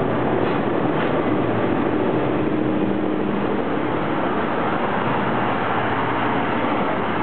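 JR Kyushu ED76 AC electric locomotive pulling out with a train of blue sleeper coaches, passing close by and then the coaches rolling past. There is a steady rumble of wheels on rail, with a low hum from the locomotive that drops away about three and a half seconds in.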